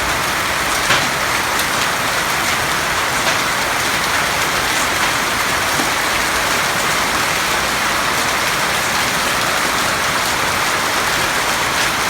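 Steady heavy rain falling, an even hiss with scattered sharper drop hits.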